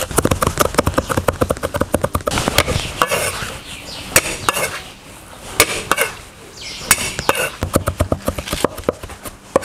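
Chinese cleaver rapidly chopping pickled chilies, then garlic, on a thick wooden chopping block: fast runs of blade knocks with short pauses between.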